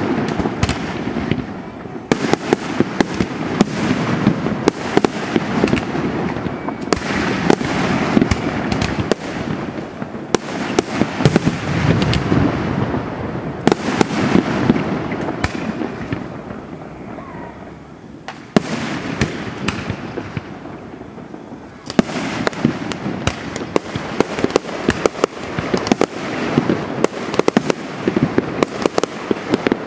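Fireworks display: aerial shells bursting with dense crackling and popping. The bangs thin out and quieten for a few seconds past the middle, then a thick run of crackling starts again.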